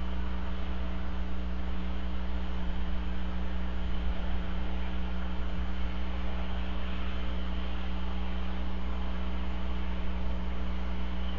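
Steady electrical mains hum with a constant hiss, unchanging throughout, with no calls or other distinct sounds.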